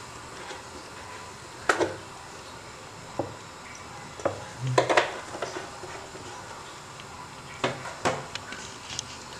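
Pots, pans and utensils clattering: a string of separate knocks and clinks, with a denser cluster about five seconds in.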